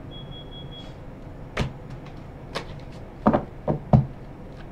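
A few sharp taps and knocks on a tabletop, about five in the last three seconds, the last one the loudest: tarot cards and a hand being set down on the reading table.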